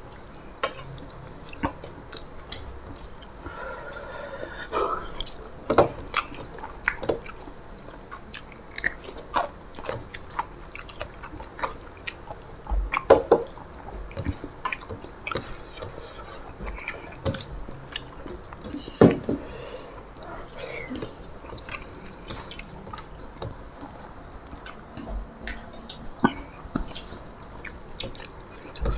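People eating rice and curry by hand from stainless-steel plates: fingers mixing and scraping rice against the metal, with scattered sharp clicks and taps, and chewing. The loudest taps come about 6, 13 and 19 seconds in.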